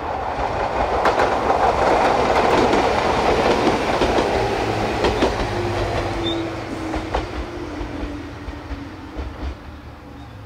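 A 6000-series electric local train running past on the rails, wheels clacking over rail joints. It is loudest in the first few seconds, then fades as it moves away, with a steady tone sliding slightly lower in the middle.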